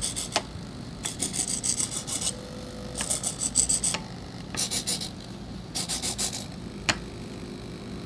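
SG90 micro servos of a pan/tilt gimbal driving in short bursts as the joystick moves them: about five rapid, rasping gear-train buzzes, each lasting half a second to a second, with a single sharp click near the end.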